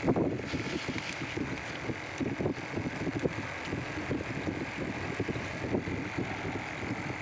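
Wind buffeting the microphone in uneven low gusts over a steady background hiss.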